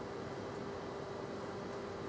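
Room tone: a steady hiss with a faint constant hum.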